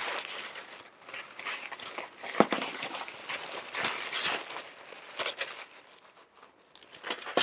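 Paper crumpling and crinkling as it is stuffed under a metal charcoal chimney starter, with a few sharp knocks as the chimney is handled, the loudest about two and a half seconds in. The rustling dies down near the end.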